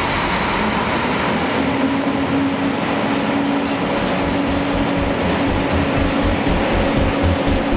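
Generac Gemini standby generators running as they start up and come online together in a ten-second paralleling test. It is a loud, steady machine drone with a low pulsing underneath, and a steady hum tone joins in about a second and a half in.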